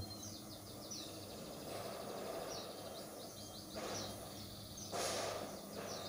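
Small birds chirping in series of quick high chirps over a low steady hum, with two short rustling noises about two-thirds of the way through.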